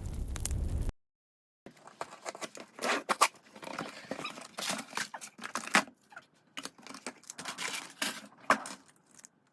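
Album packaging being unboxed by hand: plastic shrink-wrap and paper crinkling and tearing, with irregular clicks and rustles of handling. It is preceded by about a second of low rumbling noise that cuts off abruptly.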